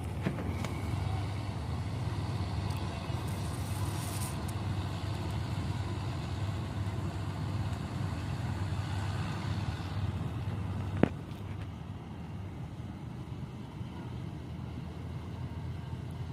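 Engine of a wheat-harvesting machine running steadily, with a low, even hum. A single sharp click comes about eleven seconds in, after which it runs a little quieter.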